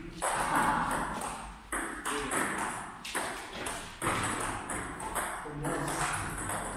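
Table tennis rally: the celluloid ball clicks off the bats and bounces on the table, a sharp tap about every second.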